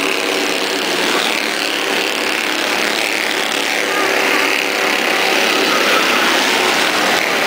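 Small-engined Bandolero race cars running on a short oval, their engines buzzing steadily as the pack laps, a little louder as one car passes close about six seconds in.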